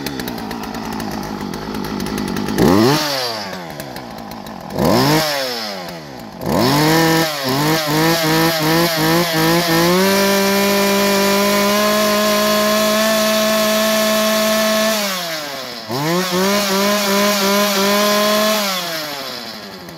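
Poulan Pro two-stroke chainsaw running and being revved: a couple of single blips, then a quick string of throttle blips, then held at full throttle for about five seconds. It drops back to idle, revs up again and falls away near the end.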